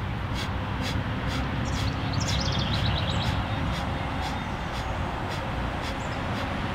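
Rapid forceful exhales through the nose of kapalabhati breathing, about three sharp puffs a second, each driven by snapping the belly in, over a low steady rumble.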